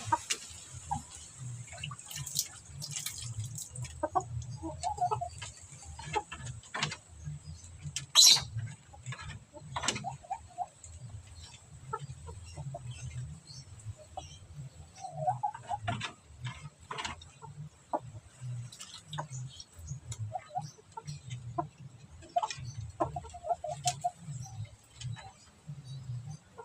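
A chicken sick with ngorok, the snoring respiratory illness, giving short clucks now and then while being handled, among scattered sharp clicks, the loudest about eight seconds in, over a low rough hum.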